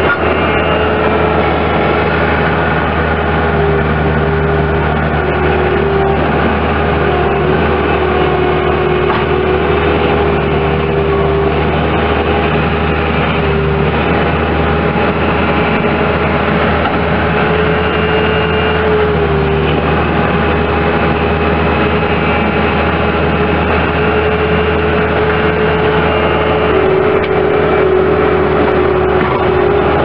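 2005 Bobcat S185 skid steer loader's four-cylinder Kubota diesel engine running steadily, with a steady whine over the engine sound that shifts slightly in pitch a few times.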